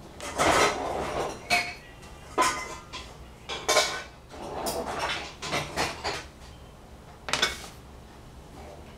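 Kitchen utensils and cookware clattering and knocking in irregular bursts while a cook rummages for a utensil, some knocks ringing briefly like metal.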